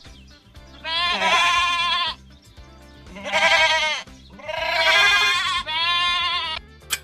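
Sheep bleating four times, each bleat about a second long with a wavering pitch, over quiet background music.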